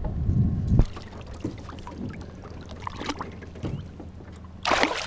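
Handling noise and light knocks on a small boat, with a low thump just under a second in; near the end a short splash as a released fish goes back into the water.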